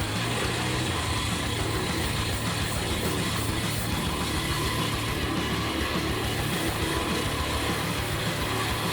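A heavy machine's engine running steadily: a constant low hum under an even mechanical noise, with no change in level.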